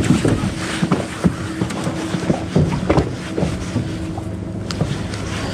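Steady hum of a boat motor, with scattered short clicks and knocks as a spinning reel is cranked against a hooked coho salmon.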